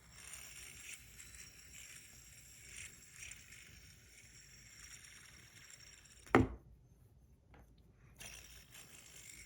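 Faint whir of a fidget spinner with tungsten buttons spinning on its bearing, broken by one sharp knock about six seconds in; the whir picks up again near the end.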